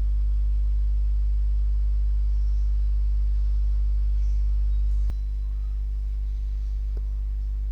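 Steady low electrical mains hum with a stack of overtones. A single click comes about five seconds in, after which the hum continues a little quieter.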